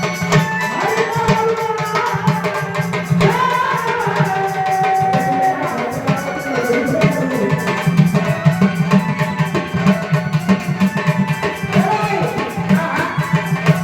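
Indian devotional music: a fast, steady hand-drum beat under a bending melody line, with one note held for about a second midway.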